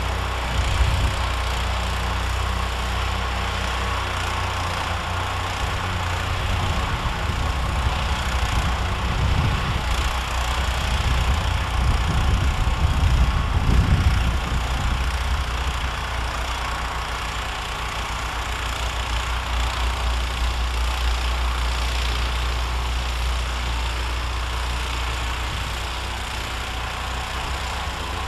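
Modified 16 hp John Deere 1032 snowblower running steadily under load while blowing snow, heard from a distance as a continuous engine hum.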